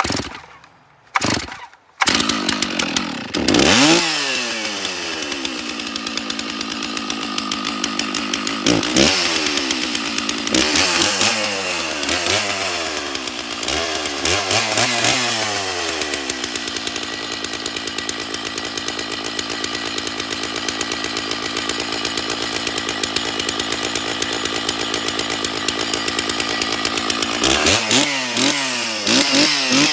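Stihl MS660 two-stroke chainsaw being started from cold. Two short bursts are followed by the engine catching about two seconds in. The throttle is blipped several times, the engine runs at a steady high idle to warm up, and it is revved again near the end.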